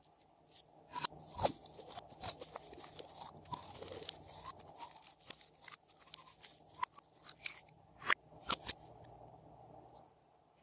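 Glossy slime being worked by hand, giving off a run of sharp pops and crackles, denser for a stretch a couple of seconds in.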